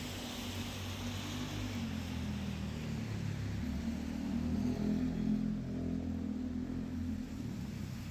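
A motor vehicle's engine droning low, growing louder to a peak about two-thirds of the way through and then easing off, over a steady hiss of rain.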